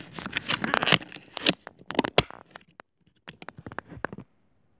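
Close rustling and crackling handling noise right at the microphone: a dense run of sharp crackles, a short pause just past the middle, then a shorter run that stops near the end.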